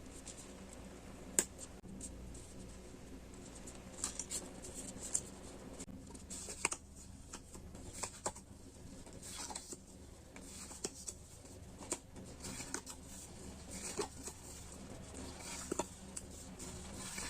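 Stationery and packaging being handled close to the microphone: scattered light taps and clicks with short bursts of rustling. The sharpest click comes about a second and a half in.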